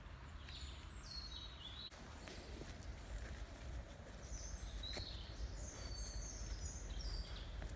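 Small songbird singing two runs of short, high, falling phrases over a steady low outdoor rumble. A few soft clicks and rustles come from a beagle searching through dry leaf litter.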